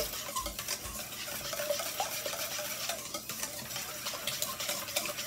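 Wire whisk beating eggs in a stainless steel mixing bowl, stirred round in one direction: a steady run of quick scraping clicks of wire against the metal.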